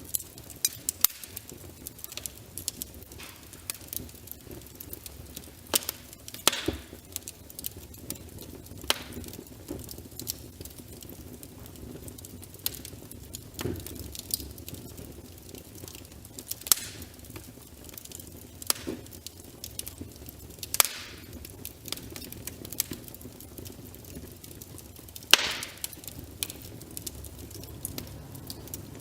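Wood fire crackling in a fireplace: irregular sharp snaps and pops over a low, steady rumble of burning. A few pops stand out louder than the rest, the loudest near the end.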